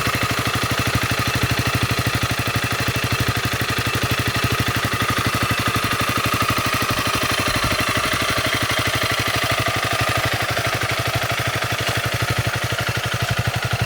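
Honda CRF300L's single-cylinder four-stroke engine idling steadily through its stock exhaust, with an even, rapid exhaust pulse.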